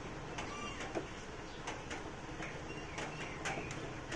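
Scattered light clicks and taps of a long screwdriver working the screws of a sheet-metal amplifier cover, with a few faint bird chirps.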